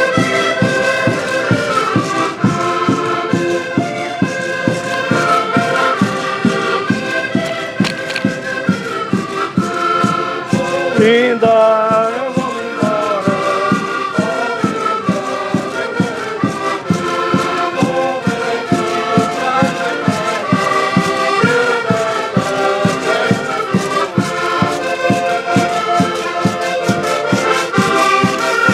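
An ensemble of accordions playing a tune together in unison, over a steady, even beat from the bass side.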